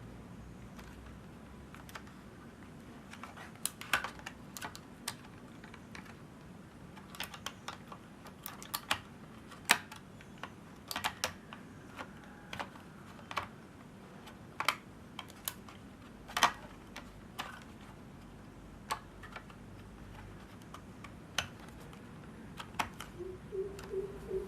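Irregular light clicks and taps, one or two a second at most, starting a few seconds in, over a faint steady background hum.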